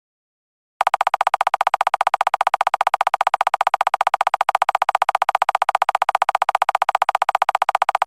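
A rapid electronic pulsing tone, about ten even pulses a second, starting just under a second in.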